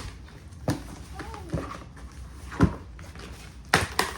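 Cardboard box and packaging handled while being opened: several sudden knocks and clicks, the loudest about two and a half seconds in and two close together near the end, with faint rustling between.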